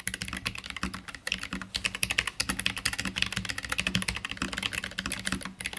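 Fast continuous typing on a Keychron K3 Pro mechanical keyboard with red linear low-profile switches: a rapid, even stream of key clicks.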